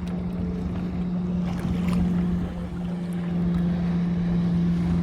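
A boat motor's steady drone under wind and the wash of waves, with a brief splash about two seconds in.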